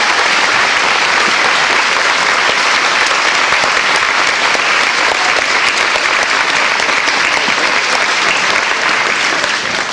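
Audience applauding, a dense, steady clapping that dies away at the very end.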